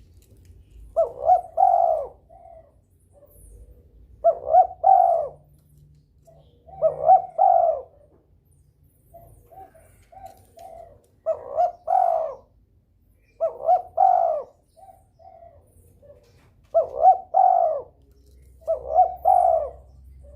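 Spotted dove (derkuku) cooing repeatedly, with seven quick two-to-three-note coo phrases about every two and a half to three seconds and softer short notes between them. It is a bird in breeding condition, calling persistently.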